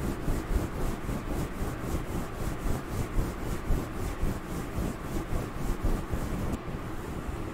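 Fingers scratching and rubbing a fluffy fur microphone cover up close: a dense, scratchy rustle in quick, even strokes of about four a second, mimicking a head scratch.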